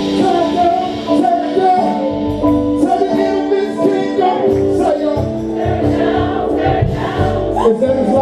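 Live gospel choir singing with a band: held keyboard chords, voices rising and falling over them, and bass notes coming in about two seconds in.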